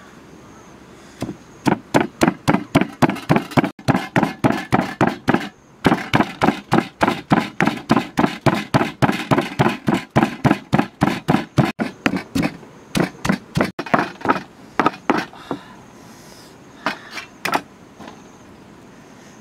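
Pestle pounding garlic and herbs in a stone mortar: rapid, regular strikes at about four a second, with a short break about five seconds in. The pounding stops about three-quarters of the way through, with a few lone knocks near the end.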